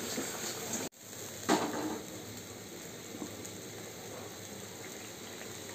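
Thin fish curry bubbling in a karahi, a faint steady simmer, with a brief gap about a second in and a short louder rustle just after.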